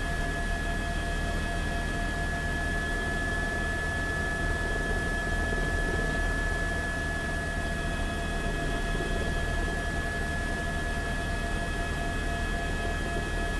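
Steady hum and hiss with a constant high-pitched whine, unchanging throughout.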